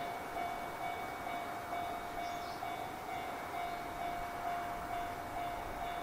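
Japanese railway level-crossing warning bell ringing steadily, a repeated ding about twice a second, sounding for an approaching freight train.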